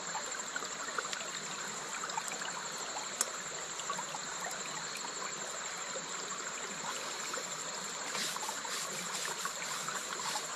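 Night insects trilling steadily at a high pitch over the even wash of a flowing stream.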